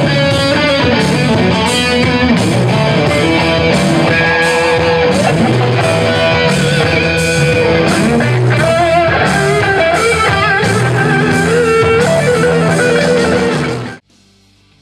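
Two electric guitars played live through Marshall amplifiers in a heavy rock duet, over a steady beat that hits about twice a second. The music cuts off suddenly near the end.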